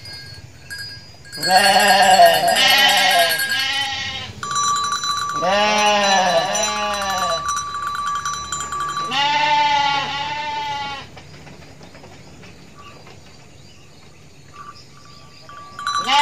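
Adult sheep bleating loudly in three runs of two or three wavering bleats, with short pauses between runs and a quieter stretch near the end.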